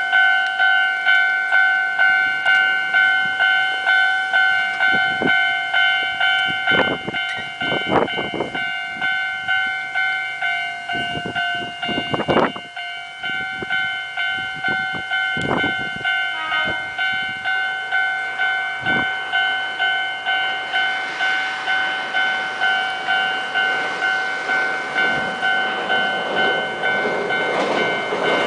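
Level-crossing warning bell clanging steadily at about two strokes a second while an Ohmi Railway electric train approaches. The train's running noise swells over the last several seconds and turns loud right at the end as it reaches the steel girder bridge.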